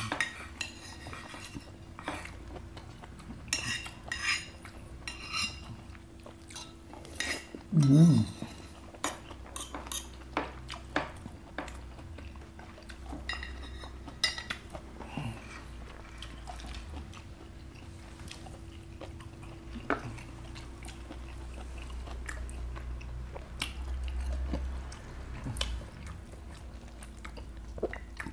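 Metal spoons clinking and scraping on plates in scattered short clicks as two people eat, with some chewing. About eight seconds in, a brief loud low vocal sound stands out.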